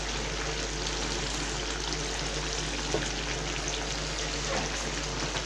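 Wild duck pieces simmering in a thick tomato-and-mayonnaise sauce in a frying pan: a steady sizzle and bubbling as the sauce boils.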